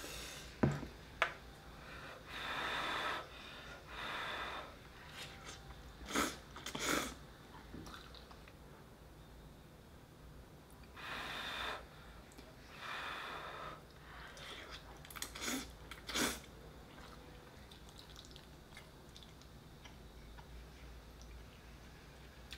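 Ramyeon noodles being slurped, about four times, each slurp lasting about a second, with a few sharp clicks of utensils against the bowls in between.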